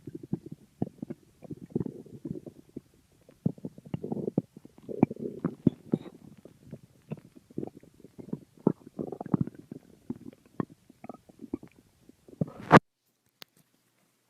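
Stomach growling and gurgling: irregular low rumbles broken by quick bubbly pops. It cuts off near the end with a sharp loud click.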